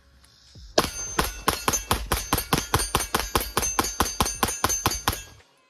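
Rapid fire from a Smith & Wesson M&P Performance Center Carry Comp, a 9mm pistol with a factory-ported (compensated) barrel and slide. It fires a long, fast string of shots, about six a second, starting about a second in and stopping suddenly near the end.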